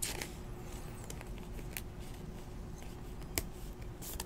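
Faint clicks and rustles of a trading card being slid into a clear plastic penny sleeve and the cards being handled, a few scattered ticks over a faint steady hum.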